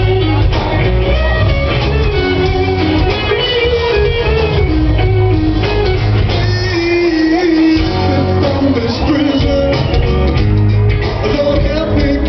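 A rock band playing live: guitar over a heavy bass and drum beat, with a voice singing. The low end drops out briefly about two-thirds of the way through, then returns.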